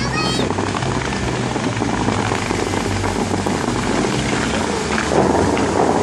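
Musical fountain show: water jets hissing and splashing into the lake over accompanying music with low sustained notes. About five seconds in, a new volley of tall jets shoots up with a louder rush of water.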